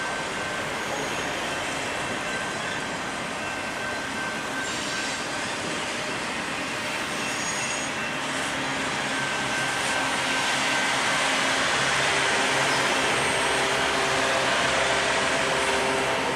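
Intermodal freight train of highway trailers on flatcars rolling past: the steady rumble and clatter of steel wheels on the rails, with a faint thin high tone over it. It grows louder about ten seconds in.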